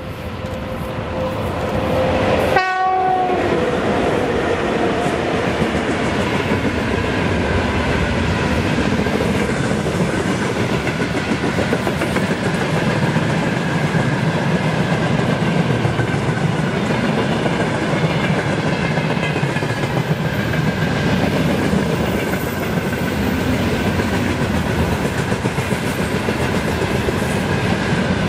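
An electric-locomotive train passing close by. A horn sounds as the locomotive approaches and drops in pitch as it goes past, about two and a half seconds in. Then the cars roll past with a loud, steady rumble and the clickety-clack of wheels on the rails.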